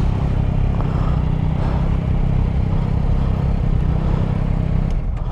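Yamaha Tracer 9 GT's 890 cc three-cylinder engine running steadily at low revs as the bike is eased into a parking bay, with a brief click near the end.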